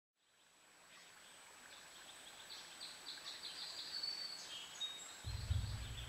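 Small songbirds chirping, fading in from silence, with a quick series of repeated high chirps in the middle. A low rumble comes in about five seconds in.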